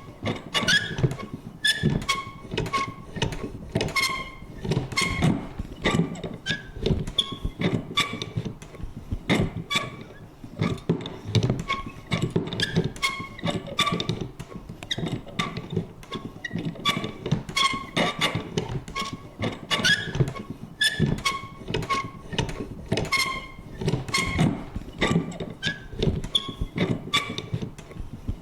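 Vintage paper punch working over and over: a quick, uneven run of sharp clicks and thunks, many with short squeaky creaks.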